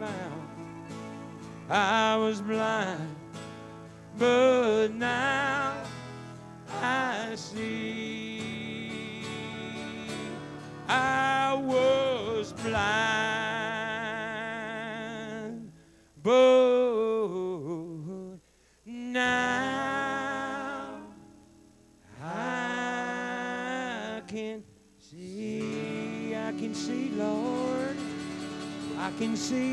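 Live country band playing a slow melody: a lead line of sliding, wavering notes in phrases a few seconds long, with brief drops almost to silence about 18 and 22 seconds in.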